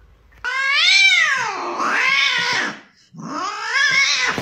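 A domestic cat meowing twice in long, drawn-out calls that rise and then fall in pitch. The first call lasts about two seconds, and the second follows after a short gap.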